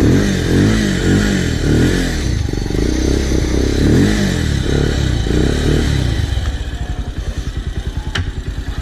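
Motorcycle engine revved several times, pitch rising and falling, then settling to a steady idle about six seconds in.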